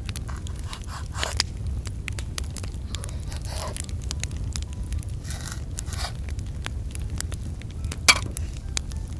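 A kitchen knife scrapes and cuts through soft mashed-potato dough on a floured board, with scattered light clicks and one sharper knock about eight seconds in, over a steady low rumble.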